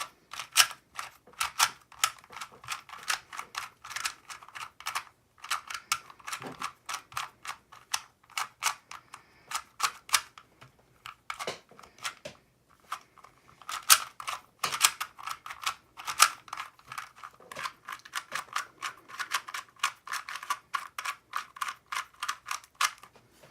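A plastic 2x2 Rubik's Cube being turned by hand as it is solved: quick runs of sharp clicks and clacks from the twisting layers, with a couple of short pauses between runs.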